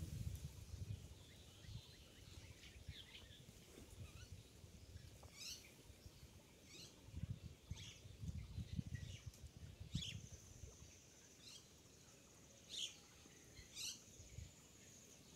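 Faint bird calls: a series of short, quick downward chirps about every second, with a thin steady high tone held for the last few seconds. Underneath is an uneven low rumble.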